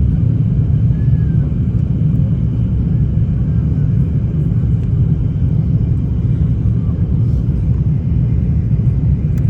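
Steady low rumble of an Airbus A350 airliner's engines and airflow, even and unchanging, as heard from inside the cabin.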